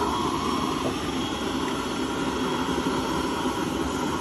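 Steady rushing noise of a stove burning used engine oil, its burner running under a large cooking pot.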